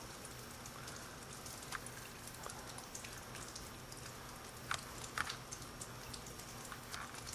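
Icy snow falling and ticking on a mesh screen: a faint steady hiss with scattered small ticks, a couple of sharper ones about five seconds in.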